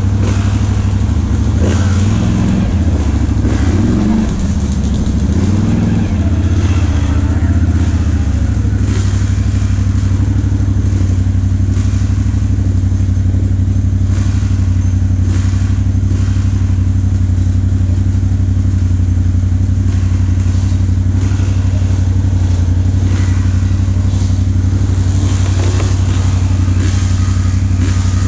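Can-Am ATV engine idling close by, its pitch wavering up and down for the first several seconds before settling into a steady idle.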